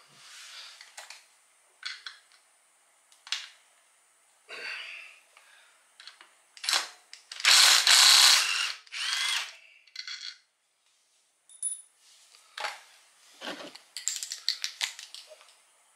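Hand tools loosening the 10 mm bolts of a Honda Civic Hybrid CVT's lower pan: scattered clicks and metal knocks, with a louder ratcheting burst about halfway through.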